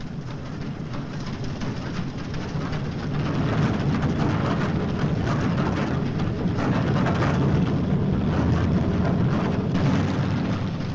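Feed-grinding machine running steadily, grinding corn into cattle feed, with a low engine drone under a coarse grinding noise that grows louder about three seconds in.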